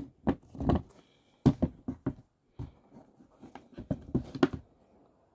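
Handling noise from sneakers and their cardboard shoe box being moved and set down: an irregular series of knocks, taps and scuffs.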